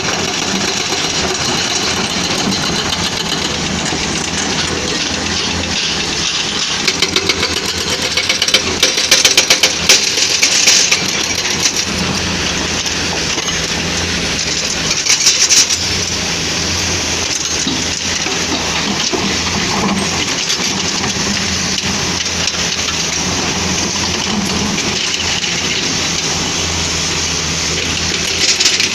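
Caterpillar 320D excavator's diesel engine running steadily under work, with stretches of heavy rattling and clattering about a third of the way in, again around the middle, and briefly near the end.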